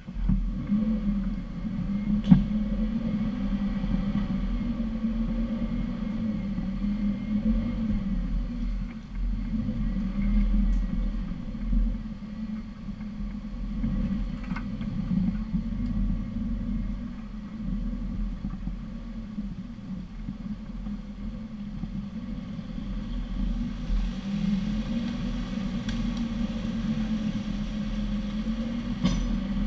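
Off-road 4x4's engine running at low revs as it crawls along a muddy forest track, heard close through a hood-mounted camera, its drone rising and falling slightly with the throttle. A few sharp knocks from the vehicle over bumps, the loudest about two seconds in.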